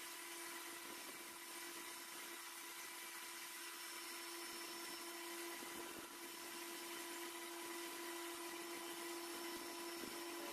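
Machine tool running steadily during crankshaft machining: a faint, even hum with a steady whining tone over a hiss.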